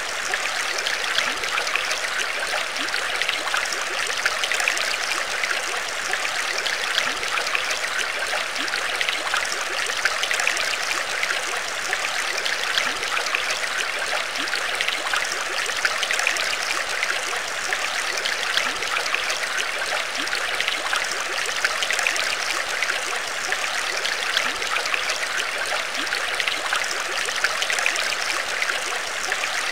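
Steady trickling water, an even wash flecked with many small droplet sounds.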